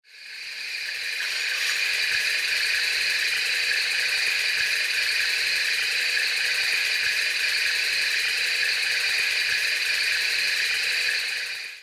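A steady hissing drone that fades in over about a second, holds level, and drops away at the end.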